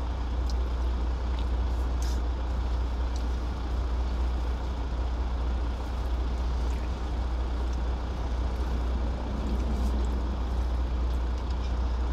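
Semi truck's diesel engine idling steadily, a low rumble heard inside the cab, with a few faint clicks over it.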